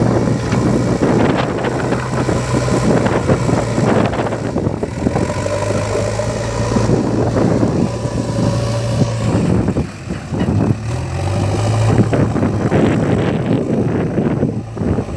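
Diesel engine of a JCB 3DX backhoe loader running steadily at work, with the rattle and knock of the loader and the mud being handled over it.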